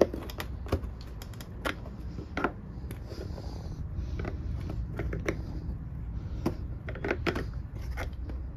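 Flat-head screwdriver prying at a small light housing set in plastic bumper trim. It gives scattered sharp plastic clicks and scrapes as the light's retaining clips are worked loose, over a steady low rumble.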